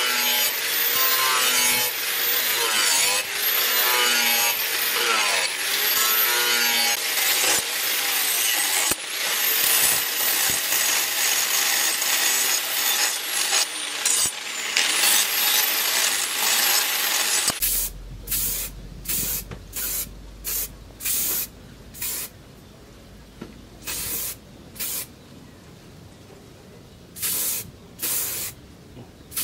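Angle grinder with a sanding disc grinding the steel cleaver blade, its whine dipping and recovering as it is pressed in. About 17 seconds in the grinding stops, and an aerosol spray can gives a series of short hissing bursts.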